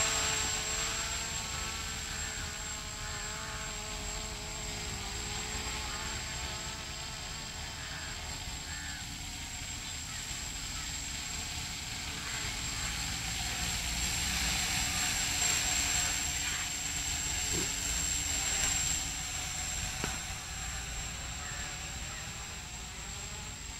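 Quadcopter's electric motors and propellers buzzing in flight while it carries a battery slung beneath it. The whine wavers up and down in pitch as the motors change speed.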